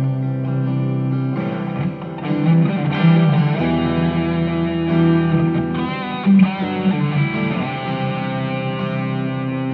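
Electric guitar through a Belcat V35RG 35-watt combo amp with a 10-inch speaker, clean channel, EQ flat. A looped chord pattern made with a Zoom G1Xon acoustic-simulation patch plays under a lead line on the pedal's lead patch, which comes in about a second and a half in with string bends and vibrato.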